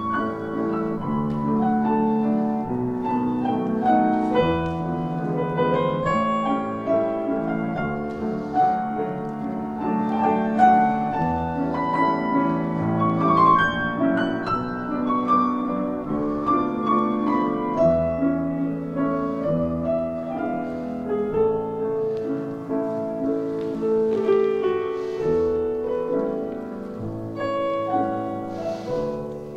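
Piano music playing a continuous run of notes: the accompaniment for a ballet barre exercise.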